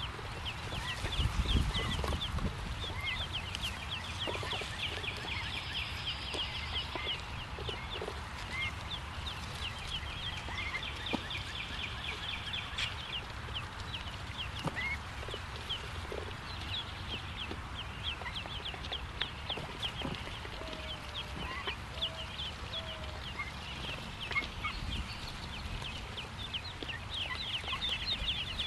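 Mallard ducklings peeping: a near-continuous stream of rapid, high, falling peeps from several chicks at once. A brief low rumble comes about a second and a half in.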